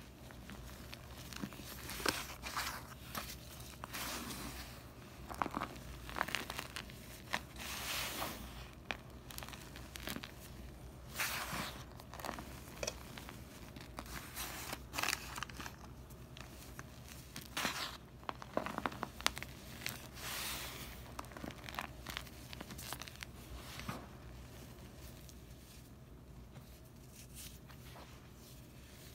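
Hands crumbling and squeezing a crumbly mass of Comet and Ajax scouring powder mixed with gym chalk, giving irregular soft crunches and crackles as the clumps break and the powder falls. The crunches come in clusters, some louder, with short quieter gaps between.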